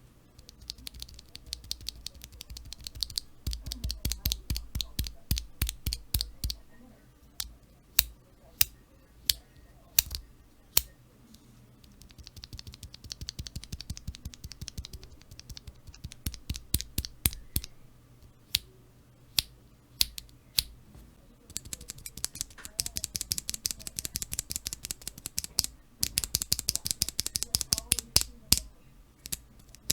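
Cherry MX Black linear mechanical key switches in a keychain switch tester being pressed and released over and over. Fast runs of light clicks alternate with slower, sharper single clicks.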